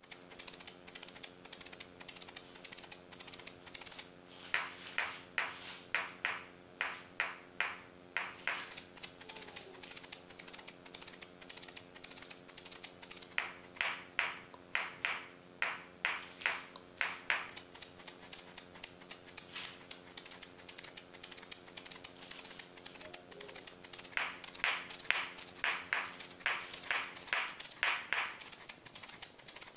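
A pair of maracas shaken in a steady salsa rhythm, the clave pattern worked into the strokes. Passages of louder, spaced accent strokes alternate with passages of quick, even shaking.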